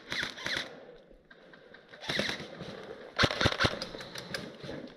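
Airsoft guns firing short rapid bursts of clicking shots: one burst trailing off at the start, another about two seconds in, and the loudest a second later.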